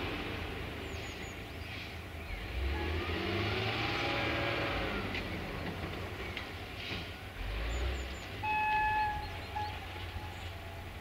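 Diesel-electric locomotive 65-0920-2 rumbling in the distance as it approaches, with one short horn blast about eight and a half seconds in.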